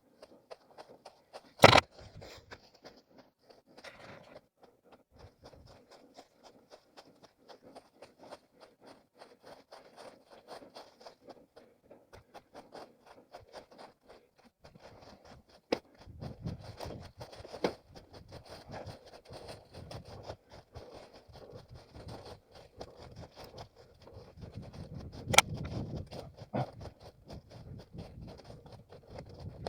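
Rustling and scraping of brush against a head-mounted camera as an orienteer moves through forest, over a run of small ticks and crackles. Sharp knocks come about two seconds in, twice in the middle and once loudly near the end.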